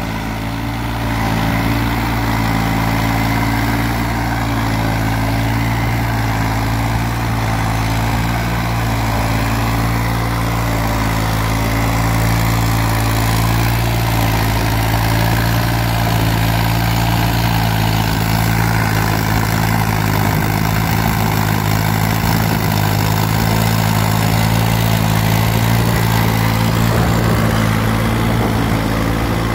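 New Holland 3630 tractor's three-cylinder diesel engine running steadily under load while pulling a tined cultivator through the soil. It is heard close up, with a deep, even hum that holds the same pitch throughout.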